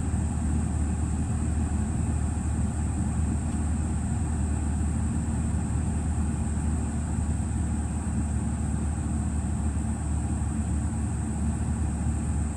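Audi TT's engine idling steadily, a low even hum with no change in speed.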